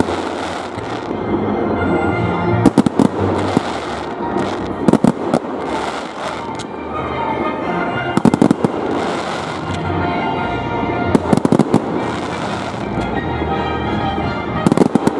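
Display fireworks bursting overhead: clusters of sharp, loud bangs every two to three seconds, each trailing off in a rush of noise.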